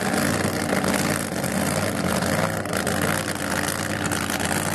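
Drag race car's engine idling steadily, a deep, even drone with no revving.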